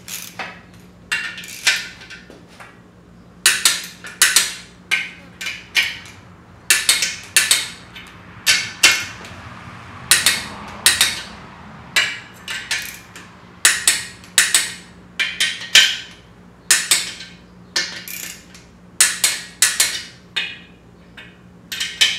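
Torque wrench ratcheting on the through-bolt nuts of a VW Type 1 engine case, tightening the case halves to 25 ft-lb. Quick clusters of metallic ratchet clicks come over and over, about once a second, over a faint steady hum.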